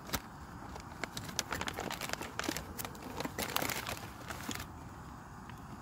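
Crinkling and rustling of a foil-lined freeze-dried food pouch and the clear plastic bag inside it being pulled open and handled, busiest in the middle.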